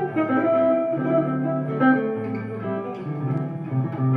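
Fender Jaguar electric guitar with a clean tone playing a seventh-chord arpeggio line, single plucked notes following one another across the strings.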